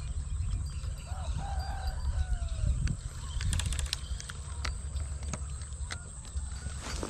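Low wind rumble on the microphone, with a distant rooster crowing once about a second in. Scattered sharp clicks and rustles come from the rod and reel being handled in the vegetation, clustered about halfway through.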